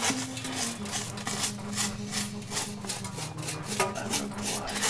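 Nylon-bristled toothbrush scrubbing dried salt off a painted molded plastic card tray: a quick run of scratchy brush strokes, a few per second. This is the salt mask being brushed away.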